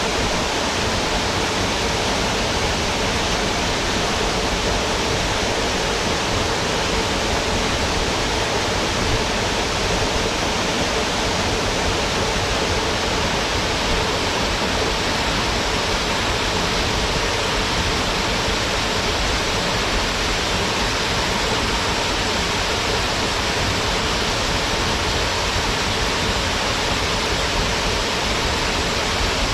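Waterfall pouring steadily into its plunge pool: a constant, even rush of falling water.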